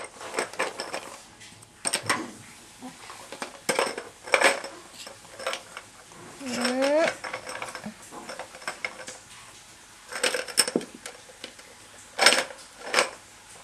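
A baby shaking and knocking a plastic hand-held toy, making irregular clattering clicks and knocks, with a short rising baby vocalisation about six and a half seconds in.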